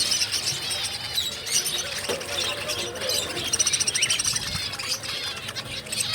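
Many small cage birds chirping and twittering at once: a dense chorus of short, high, overlapping chirps.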